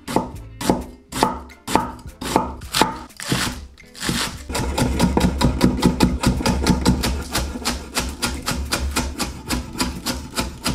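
A large knife slicing cabbage on a wooden cutting board in steady strokes, about three a second, each ending in a knock on the board. About four seconds in it changes to quicker, lighter chopping of spring onions.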